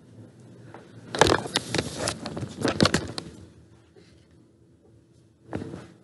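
Handling noise: a quick run of clicks, knocks and scrapes for about two seconds starting about a second in, then faint rustling, with one more short knock near the end.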